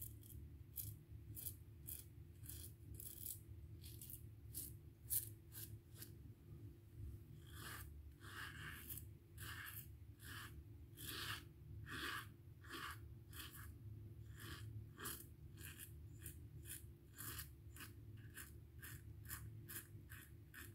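Merkur Futur safety razor scraping through stubble on lathered skin in short repeated strokes, about two a second, some stronger in the middle. A low steady hum runs underneath.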